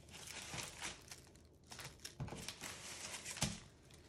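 Plastic packaging bags crinkling and rustling as they are handled and sorted, with two sharper knocks about two and three and a half seconds in.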